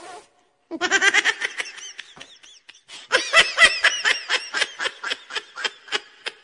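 Rapid, high-pitched laughter in quick rhythmic pulses, in two runs: one beginning about a second in, and a longer, louder one from about three seconds in.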